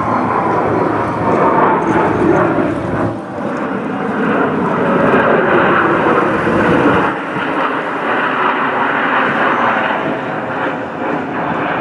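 Jet engines of a formation of military jets flying overhead: a loud, steady rush with a whine that falls in pitch over the first few seconds.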